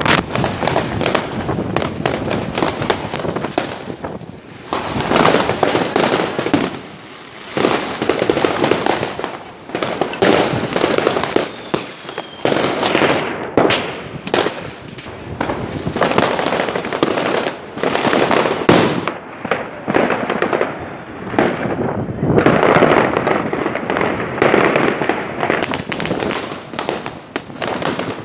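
Fireworks going off in rapid, overlapping succession: a dense run of bangs and crackling with a few brief lulls.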